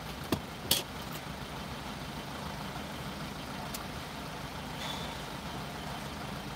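Car engine idling steadily, heard from inside the cabin, with a few sharp clicks in the first second and another about four seconds in.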